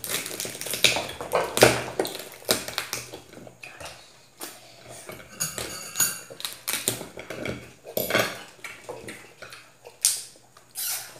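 Boiled mud crab shells cracked and pulled apart by hand, mixed with cutlery clinking against plates and a bowl: a run of irregular sharp clicks and cracks.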